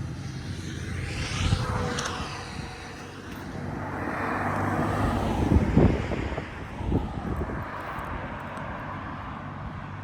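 Aerial fireworks going off with low booms, the loudest about six seconds in and another about a second later. Under them is a steady low hum with a passing whoosh about a second in.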